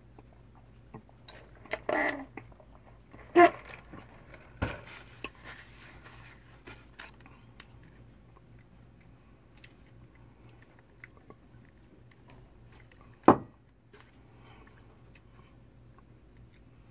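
Close-up eating sounds: a person chewing and crunching crispy fried fish, with scattered mouth noises. There are a few sharp knocks, the loudest near the end.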